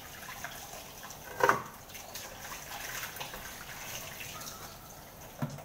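Tap water running into a stainless steel sink while bunches of watercress are rinsed and shaken under it. A brief louder knock comes about a second and a half in, and a smaller one near the end.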